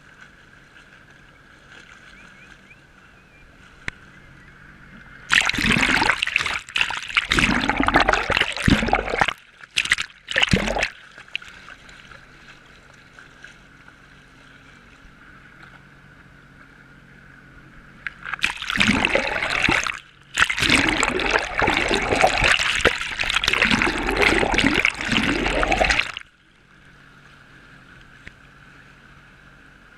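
Water splashing and rushing against a hand-held GoPro camera dipped in the sea from a jet ski, in two loud bouts, one about five seconds in and one lasting most of the second half, with a quieter muffled hum between them.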